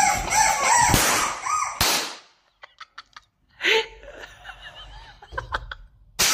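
Chicken clucking and squawking, a quick string of rising-and-falling calls in the first two seconds, followed by a few sharp clicks and one short squawk.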